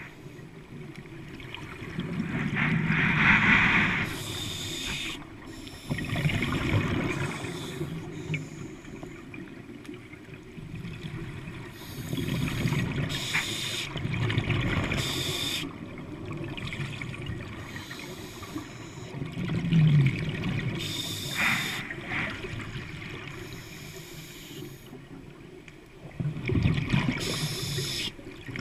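Scuba diver breathing through a regulator underwater: a short hiss on each inhale and a burst of bubbling on each exhale, about five breaths in all.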